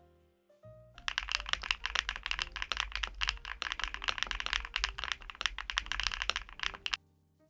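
Fast typing on a LUMINKEY75 V2 aluminium-cased, gasket-mounted mechanical keyboard: a quick, steady run of keystrokes starts about a second in and cuts off suddenly near the end. Soft background music plays under it.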